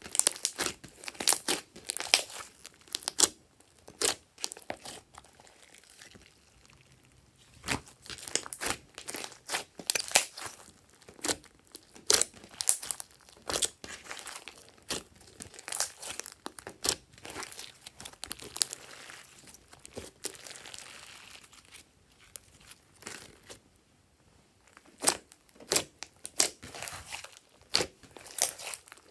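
Hands squishing, stretching and poking glossy slime, giving irregular sticky clicks, pops and crackles in quick clusters with short quieter pauses.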